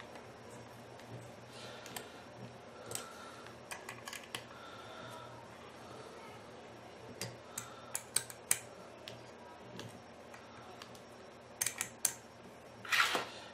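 Small metallic clicks and taps of an Allen key working the screws in the mounting base of a Dahua bullet surveillance camera as the mount is tightened, coming thicker in the second half. A short scrape of about a second near the end.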